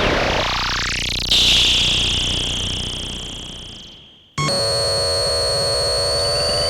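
Analog synthesizer playing a sci-fi warp sound effect. A fast rising sweep ends about a second in on a bright high tone that fades away over about three seconds. Then a steady high synth drone starts suddenly, with a rising whistle near the end.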